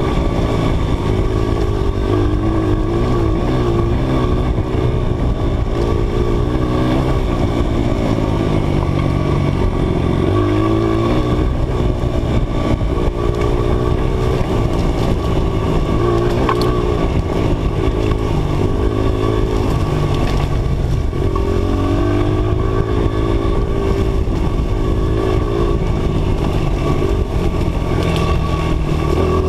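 Dirt bike engine running hard on a trail, the revs climbing and dropping again and again as the throttle is worked and gears change. Heard from a helmet-mounted camera.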